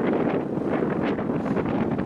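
Wind buffeting the microphone: a steady, fluttering rush of noise.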